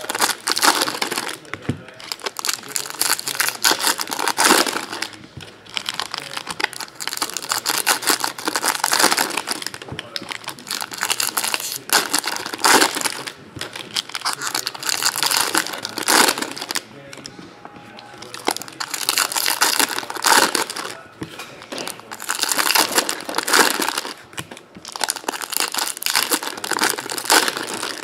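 Foil trading-card pack wrappers crinkling and tearing as packs are ripped open and the empty wrappers crumpled, in repeated bursts every second or two.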